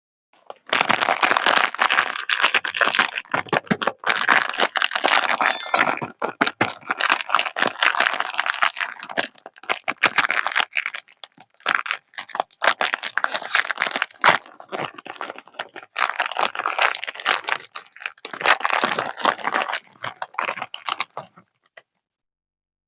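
Candy and cookie wrappers crinkling and tearing as they are unwrapped by hand, in several stretches with brief pauses, stopping shortly before the end.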